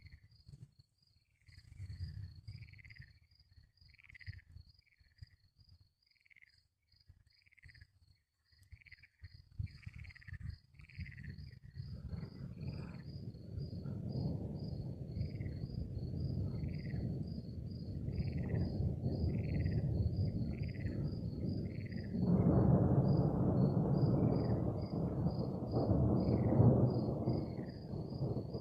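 Crickets chirping in a fast, steady pulse, with another animal call repeating about once a second. From about twelve seconds in a long rolling thunder rumble builds, growing louder around twenty-two seconds and carrying on.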